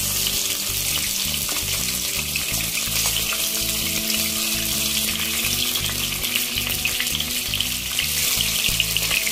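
Nile tilapia (nilotica) steaks frying in hot oil in a nonstick pan, just turned to fry the second side, with a steady sizzle and crackle of spitting oil. A wooden spatula moves the pieces now and then.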